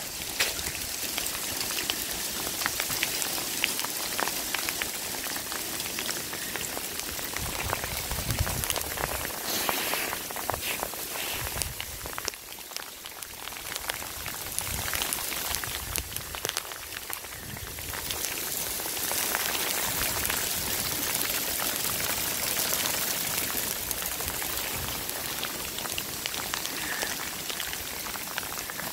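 Small hailstones falling hard, a dense patter of tiny ticks on parked cars and the pavement. It eases briefly about twelve seconds in, then gets heavier again.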